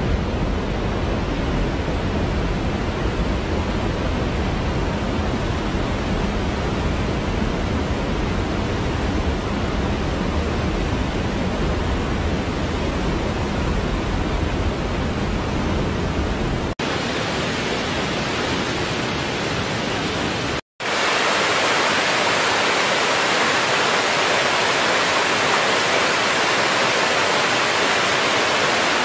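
Steady rush of running water, as from a waterfall. It changes abruptly about 17 seconds in, cuts out for a moment just before 21 seconds, and comes back brighter and hissier with less low rumble.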